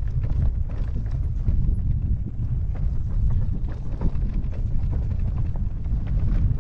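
Electric mountain bike on a rough, stony trail: a steady low rumble with frequent small knocks and rattles, and wind on the microphone.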